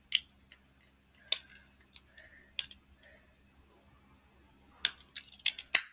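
Sharp plastic clicks and snaps as a razor and its small plastic travel case are handled and worked open, a few scattered clicks with a louder cluster near the end.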